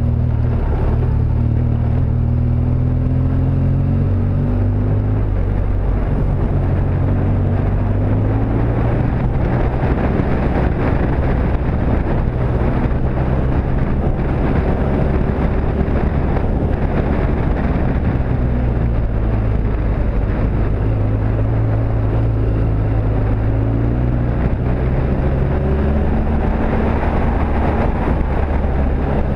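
BMW R1200GS Adventure's boxer twin engine pulling the motorcycle along a gravel road, its revs rising and falling through the run. A steady rushing noise runs beneath it.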